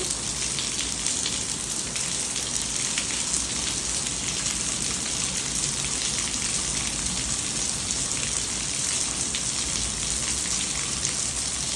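Heavy rain falling steadily: a dense, even hiss of downpour with faint scattered ticks of drops.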